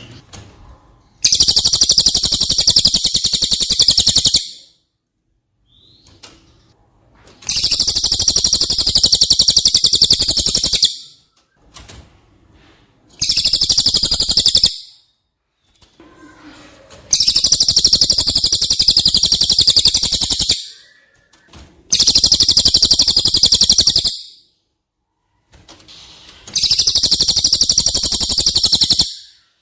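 Cililin bird song played as a masteran (tutor recording for songbirds): six loud bursts of a very fast, high, rattling trill, each lasting about one and a half to three and a half seconds, with short pauses between.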